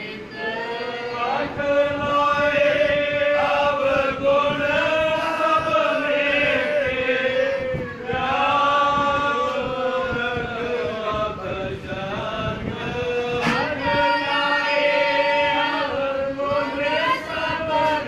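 A group of voices chanting a devotional hymn together in long, drawn-out phrases, with a brief click about thirteen seconds in.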